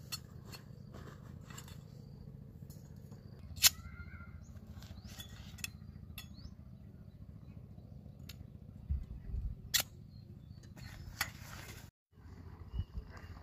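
Metal tent poles and stakes clinking and rattling as they are handled, with a few sharp clicks, the loudest about four seconds in, over a steady low outdoor rumble.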